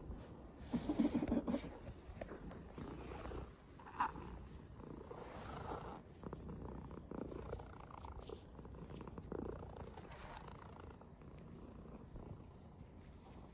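Sphynx cat purring close up while its neck and chin are stroked, loudest about a second in. A brief high note sounds about four seconds in.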